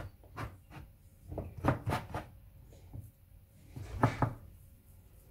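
Knocks and thumps from a white baking dish being handled and shifted on a kitchen counter while puff pastry is pressed into it: a cluster of knocks about one and a half to two seconds in, and two more just after four seconds.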